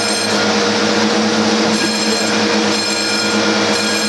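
Aircraft hangar foam fire suppression system discharging: a steady, loud rush of spray with a constant mechanical hum underneath.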